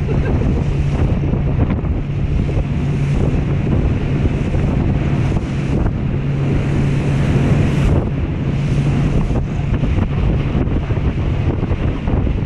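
Wind buffeting the action camera's microphone and water rushing and spraying under a banana boat towed at speed, with a steady low engine hum from the towing motorboat that fades in and out.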